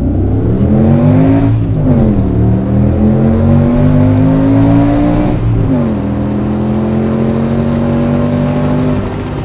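5.2-litre V10 in a manual-swapped C5 Audi S6 accelerating through the gears. The engine pitch climbs, drops at an upshift about two seconds in, climbs again, drops at a second upshift about five and a half seconds in, then pulls nearly steady in the higher gear.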